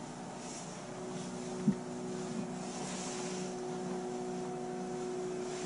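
Distant sawmill machinery running as a steady droning hum, with a faint hiss over it. A single short knock sounds a little under two seconds in.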